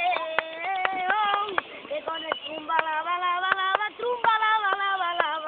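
A child singing flamenco-style in long wavering notes, with hand claps (palmas) marking the rhythm.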